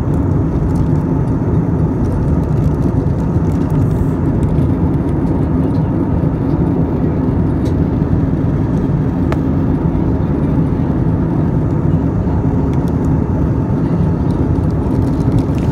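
Jet airliner cabin noise in flight: the steady, loud rush of engines and airflow heard through the cabin, with a faint steady hum under it.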